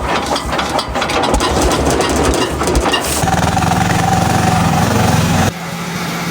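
An engine running steadily with rattling and clicking. The sound shifts to a steadier low hum about three seconds in and drops off suddenly about five and a half seconds in.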